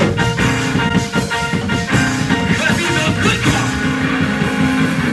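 Music with steady held tones over a busy rhythm.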